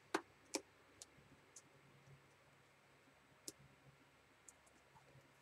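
Faint, scattered clicks and ticks of a pointed craft pick picking at the end of a strip of double-sided tape on card, two sharper clicks in the first second and a few fainter ones after.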